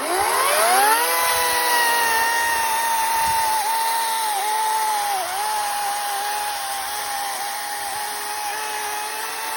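Ego CS1800E 45 cm battery chainsaw: its electric motor whines up to speed within about the first second, then runs steadily while cutting through ironbark hardwood. The pitch dips briefly a few times as the chain bites and the load comes on.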